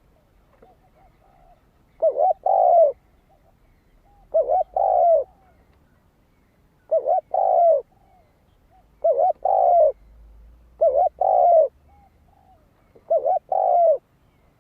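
Spotted dove cooing: six calls about two seconds apart, each two short notes running into a longer coo, with a few soft notes between the calls.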